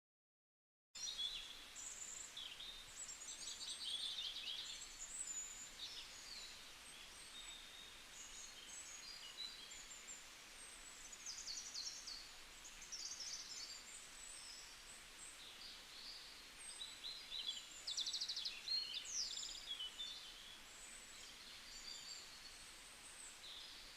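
A chorus of several songbirds chirping and trilling over one another, a dense tangle of short high calls. It starts abruptly after about a second of silence.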